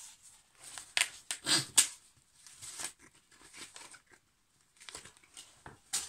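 Nylon EDC wallet being pulled open, its hook-and-loop fastener ripping apart in several short pulls amid fabric rustling. The loudest rips come between about one and two seconds in.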